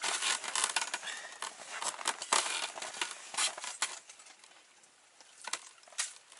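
Close rustling and crackling handling noise, dense for about four seconds, then quieter with two sharp clicks near the end.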